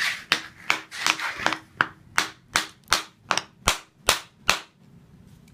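A hammer driving a nail into wood: about fifteen quick strikes, roughly three a second, stopping about four and a half seconds in.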